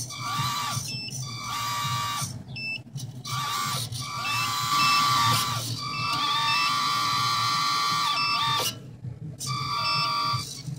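Electric hydraulic pump motor of a 1:14 RC Scania R620 timber truck whining in repeated runs, starting and stopping as the crane moves. Its pitch sags now and then under load: the pump motor isn't powerful enough.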